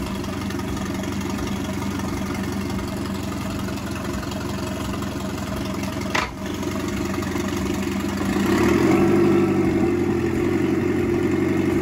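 Mercury 150 four-stroke outboard idling on flush muffs during a test run after an impeller change. About six seconds in there is a single sharp clunk, and from about eight and a half seconds the engine note rises and grows louder as the motor runs in forward gear with the propeller spinning.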